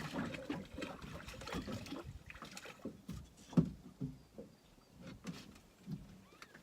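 Scattered knocks and handling noises with light water sounds as a small walleye caught on a spoon is brought in and handled; the loudest is a sharp knock about three and a half seconds in.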